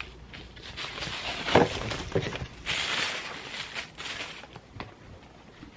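Cardboard box and packaging being handled and opened: irregular rustling and scraping with small knocks, the rustling densest around the middle.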